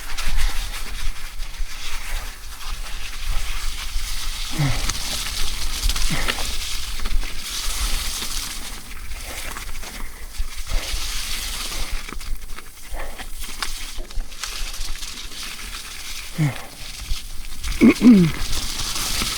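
Mountain bike descending a slushy, snowy trail: steady rush of wind on the microphone with tyre noise and rattle from the bike. A few short sounds falling in pitch break through, about a quarter of the way in, then twice near the end.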